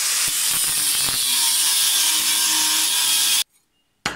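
Angle grinder with a thin cutting disc cutting steel bar stock, a steady high grinding hiss that cuts off suddenly about three and a half seconds in. A short knock follows near the end.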